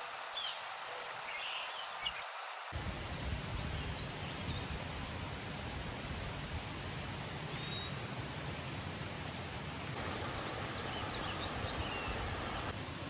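Steady outdoor background noise with a few faint bird chirps; a low rumble comes in about three seconds in and carries on.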